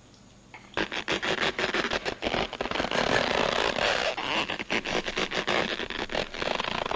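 Wet squelching and crackling from a giant gummy candy egg being bitten and pulled at the mouth. A dense run of sticky squishes and clicks starts about a second in and carries on.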